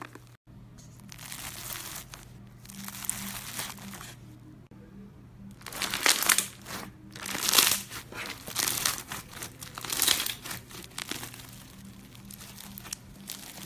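Clear slime packed with small orange beads being squeezed and stretched by hand, crunching and crackling in a run of bursts that are loudest in the middle.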